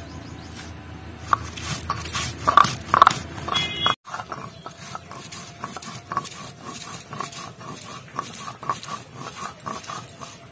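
Stone muller rubbed back and forth over a grinding slab, crushing ginger, dried red chillies and cumin into a wet spice paste. It makes rhythmic scraping strokes, about three to four a second, rougher and louder for the first few seconds, with a brief break about four seconds in.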